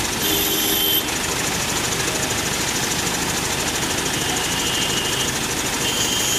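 Heavy diesel engine running steadily at idle, with a fast even chugging. Brief high-pitched tones sound over it near the start and twice more in the second half.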